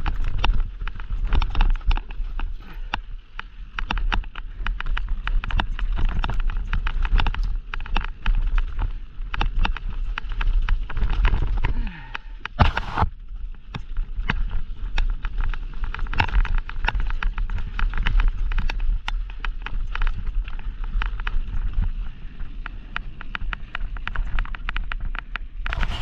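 Downhill mountain bike ridden fast over a rough dirt and gravel trail: a constant dense clatter of tyres on stones and the bike's chain and frame rattling, over a steady low rumble.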